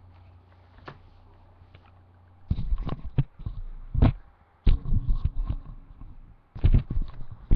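Close handling noise: a faint steady hum, then three bouts of low thumps and sharp knocks and clatter, as the cordless stick vacuum is handled and turned over close to the microphone.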